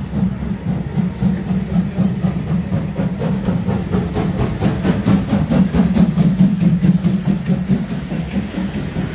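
Ty2 steam locomotive hauling a rake of heritage coaches slowly past at shunting speed. The wheels rumble steadily on the rails, with a quick run of clicks in the middle of the passage.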